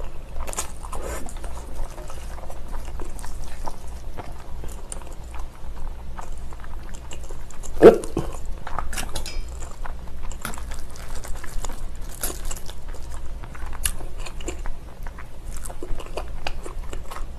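Wet chewing and slurping of spicy cold noodles, with wooden chopsticks stirring the thick sauce in a stainless-steel bowl: a string of small clicks and smacks, and one louder sound about halfway through.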